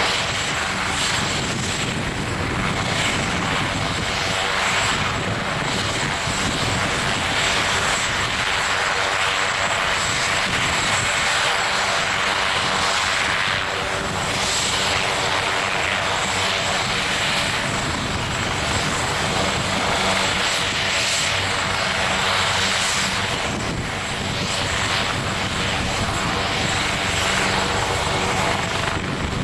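Air ambulance helicopter running on the ground with its main and tail rotors turning: a steady engine drone and rotor noise with a thin, steady high turbine whine.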